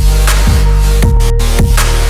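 Electronic background music with a heavy, sustained bass and a steady beat of deep kick drums, about two a second.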